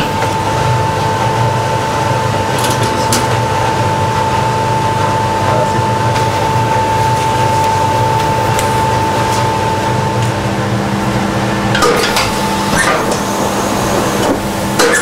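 Printing press running while printing wrapping paper: a steady mechanical hum with a held whine that stops about ten seconds in, and a few clacks around three and twelve seconds in.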